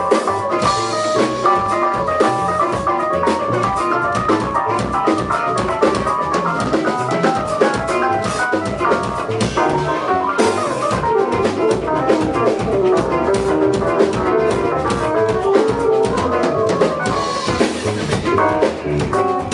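A small ensemble playing music, a drum kit keeping a busy beat under several melodic instruments.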